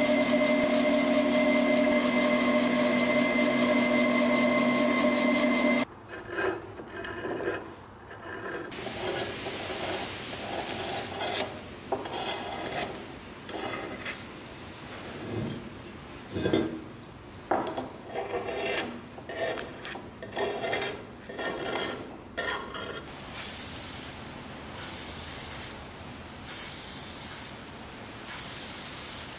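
A drill press running with a steady hum that stops abruptly about six seconds in. Then irregular rubbing and rustling as masking tape is pressed onto a cast-iron part. Near the end, an aerosol spray-paint can hisses in short bursts, about one a second.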